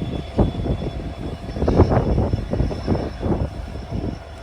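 Goods train running on a rail bridge, heard as a low, uneven rumble. The train is hauling wagons fully loaded with ballast stones for a load test.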